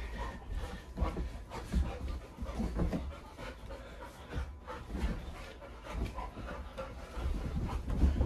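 Golden retriever panting and scuffling while play-wrestling with a person on a rug, with irregular dull thumps of bodies and paws hitting the floor.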